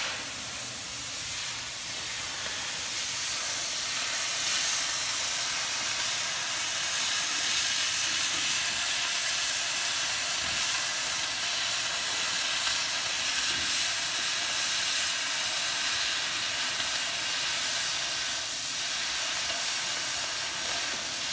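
Oxy-acetylene cutting torch with the cutting-oxygen lever held down, giving a steady hiss as the oxygen jet burns through metal plate.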